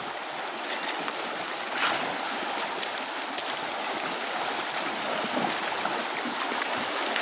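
Shallow river running fast over a stony bed: a steady rushing of water.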